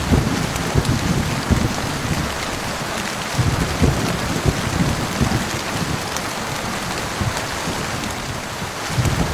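Heavy rain falling in a steady hiss, with low rolling thunder swelling under it near the start and again a few seconds in.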